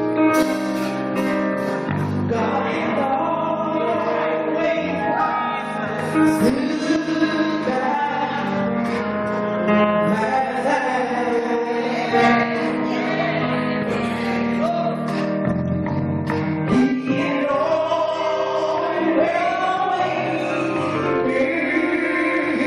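A small gospel vocal group singing a song live, voices together without a break.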